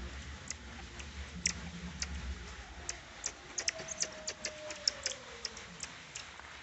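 Common marmosets giving short, high-pitched clicking chirps. They come sparsely at first, then in a quick run of a dozen or so in the middle.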